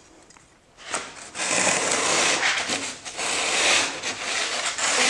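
Surform plane rasping along the snapped gypsum edge of a 5/8-inch drywall patch, shaving off loose nubs, in two long dry scraping passes starting about a second in.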